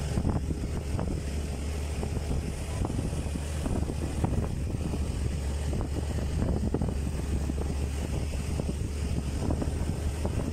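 Wind buffeting the microphone over a steady low rumble, with frequent small knocks and rattles.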